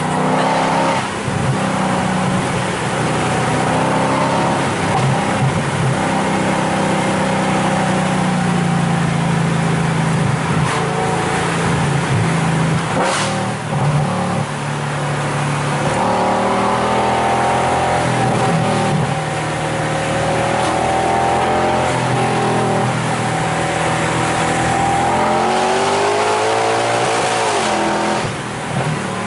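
Mercedes-Benz C63 AMG's 6.2-litre V8 with a full Innotech Performance Exhaust, heard from inside the cabin while driving, its pitch rising and falling as the car accelerates, shifts and eases off.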